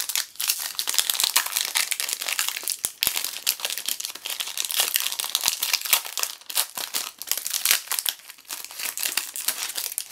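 The foil wrapper of a Donruss basketball card pack being torn open and crinkled in the hands: a dense, continuous crackling.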